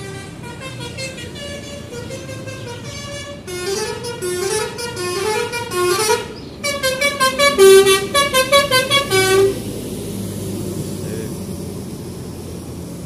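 Basuri telolet horn on a big-top bus playing a fast tune of short notes stepping up and down. It is faint at first, grows louder about three and a half seconds in, and stops near ten seconds, leaving a steady background hum.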